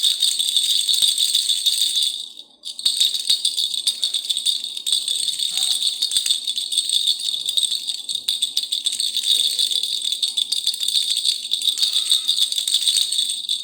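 Khulkhula baby rattle being shaken continuously, a dense high rattling with a brief break about two and a half seconds in.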